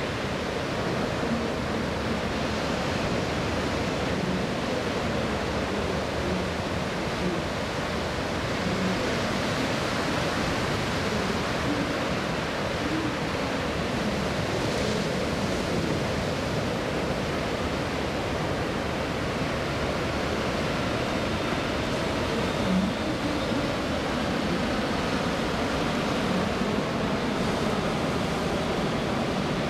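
Steady rushing jet roar from a C-5M Super Galaxy's four General Electric F138 turbofan engines on a slow, low flyby, the aircraft closing in and passing overhead.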